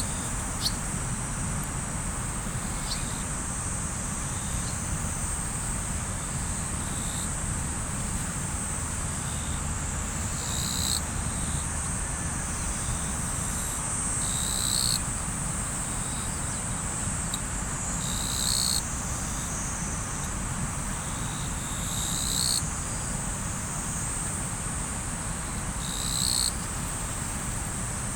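Insects trilling in a steady, high drone, with a louder call coming back about every four seconds, over the low, even rush of river water.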